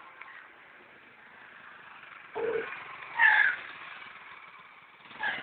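A motorcycle engine running, with a few short, loud sounds over it about two and a half, three and five seconds in.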